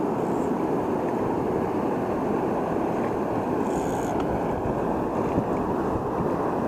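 Steady rushing of fast-flowing river water, with wind buffeting the microphone.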